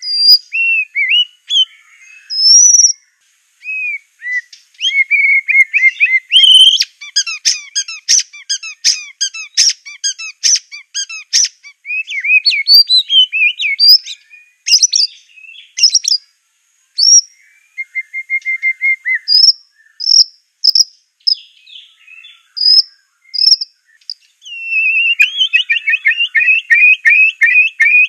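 White-rumped shama (Aceh murai batu) singing a long, varied song of whistled phrases and rapid clicking notes. Near the end it breaks into a fast run of repeated notes.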